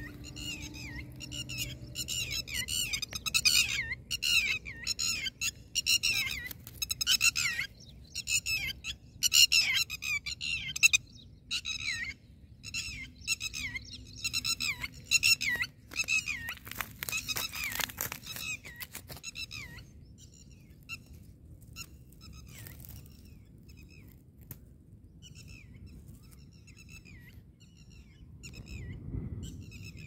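Red-wattled lapwings calling: rapid runs of high-pitched, downward-slurred notes, thick for the first ten seconds or so, then sparser and fading away in the second half. A few sharp clicks or rustles come through about seventeen seconds in.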